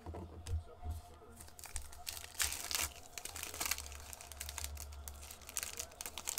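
A foil wrapper of a Panini Illusions football card pack being torn open and crinkled in the hands: a run of sharp crackles, loudest a little past two seconds in.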